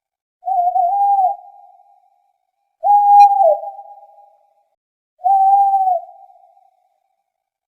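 Owl hooting: three drawn-out hoots about two and a half seconds apart, each held on one pitch and dipping at the end, with an echoing tail.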